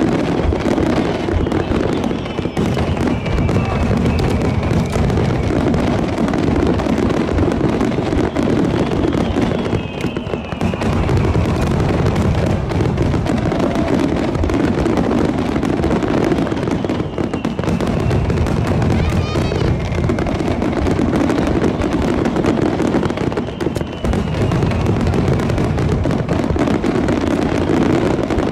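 A fireworks display at full pace: a continuous barrage of shell bursts and crackling, with a few falling whistle-like tones.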